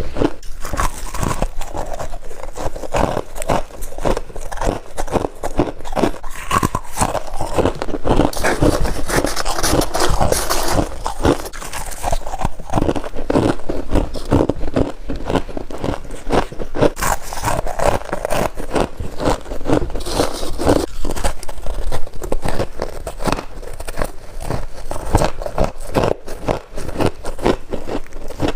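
Loud crunching and chewing of all-white freezer frost: dense, irregular crackly crunches as the frost is bitten and chewed.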